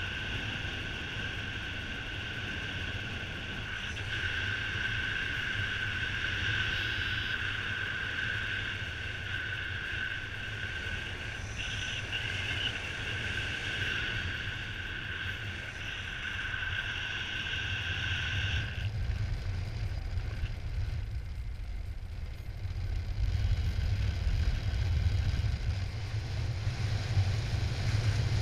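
Airflow buffeting the microphone in paraglider flight, a steady low rumble. A steady high-pitched tone runs over it and cuts off abruptly about two-thirds of the way through. The wind rumble then grows louder near the end.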